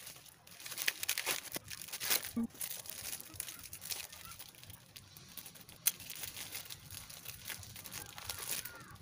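Clear plastic packaging crinkling and rustling as it is handled, in irregular bursts that are busiest in the first couple of seconds, with a sharp click about six seconds in.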